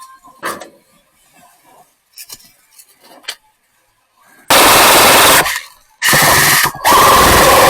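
Airsoft rifle firing long full-auto bursts right at the microphone, loud enough to overload it, after a few seconds of scattered light clicks and knocks. The firing stops briefly and starts again, with a short gap near the end.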